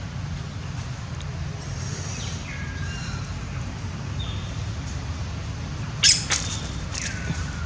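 Short high animal calls: a few chirps that fall in pitch, and one loud, sharp squeal about six seconds in. Under them is a steady low rumble.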